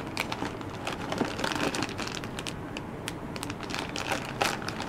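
Plastic packs of Zoom soft-plastic baits crinkling and rustling as they are flipped through by hand in a plastic tackle tray, with many small crackles and clicks.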